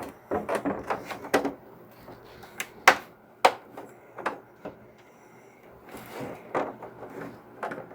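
Plastic fitting and rubber grommet being forced into a tight punched hole in a plastic hydroponic tray: a run of irregular plastic clicks and knocks, the two sharpest a little under three seconds in and about half a second later.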